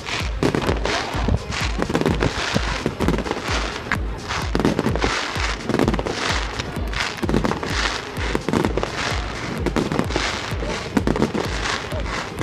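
A fireworks display with shells bursting in quick, irregular succession, over music with a steady low beat.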